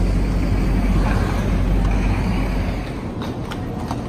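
Loud low rumble of busy city street traffic, then, near the end, a horse's hooves clip-clopping at a walk on the street.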